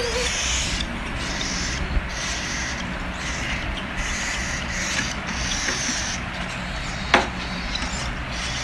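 Cockatiel chicks' raspy begging calls repeating about once a second over a steady low hum, with a sharp click about seven seconds in.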